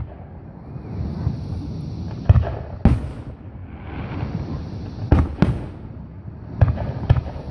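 Aerial firework shells bursting in the sky: about six sharp booms, coming in pairs about half a second apart, with a low rumble between them.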